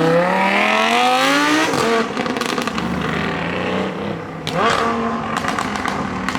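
A car engine accelerating hard as it pulls away, its pitch climbing steeply until a gear change about a second and a half in, then climbing again about four and a half seconds in, with a few sharp exhaust cracks.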